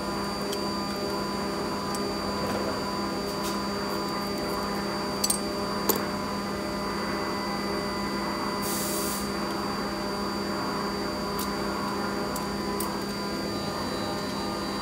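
A machine motor running steadily with a hum. Two sharp clicks come a little past five seconds in, and a short burst of hiss about nine seconds in.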